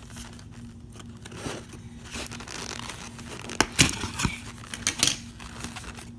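Cardboard toy-box packaging being cut and torn open, with scraping, tearing and crinkling and a few sharp clicks and taps about halfway through.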